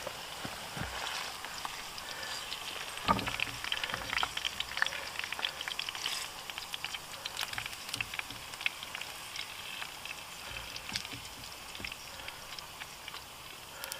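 Meat fillets sizzling in a hot frying pan, a steady crackle of small pops, with a knock about three seconds in and light clicks as pieces are moved with a fork.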